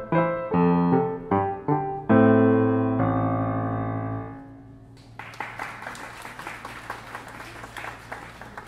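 Grand piano played four hands: the last few notes of a simple piece, then a loud final chord about two seconds in that is held and fades away. About five seconds in, hand-clapping applause starts and carries on.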